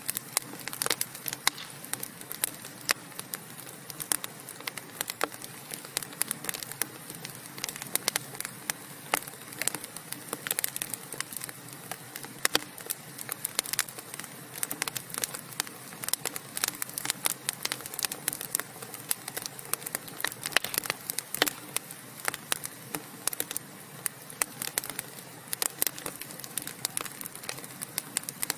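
Burning logs in a wood fireplace crackling steadily: many irregular small snaps with sharper pops here and there, over a soft hiss.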